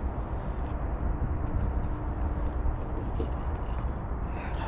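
A steady low outdoor rumble with a few faint clicks and knocks as a clamp on a bricklaying profile is loosened and tightened.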